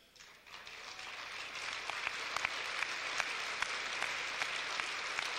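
Audience applauding: the clapping starts softly and swells over the first couple of seconds, then holds steady with many individual claps standing out.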